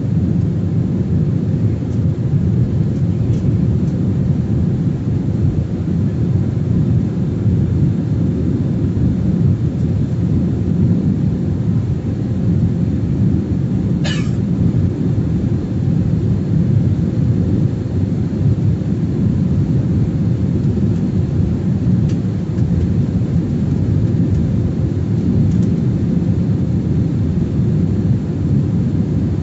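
Steady low rumble of an airliner's engines and rushing air, heard inside the cabin, with one brief click about halfway through.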